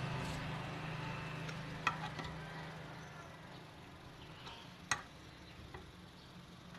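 Faint handling of an adjustable wrench at a steel bench vise: a few light metallic clicks, two sharper ones about two and five seconds in. A low hum fades away during the first second.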